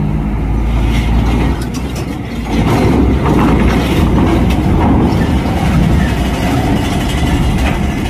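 A heavy tractor-trailer's diesel engine pulling a loaded lowboy onto a steel ferry ramp, with continuous metal clattering and rattling as the rig rolls over the ramp; the clatter grows louder about two and a half seconds in.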